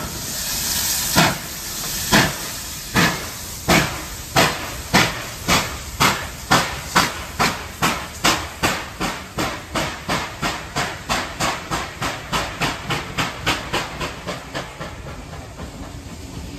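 Steam locomotive 3801, a NSW C38 class Pacific, starting away with a train: a brief hiss of steam, then exhaust chuffs that begin about a second apart and quicken steadily to about four a second as it gathers speed, fading as it pulls away.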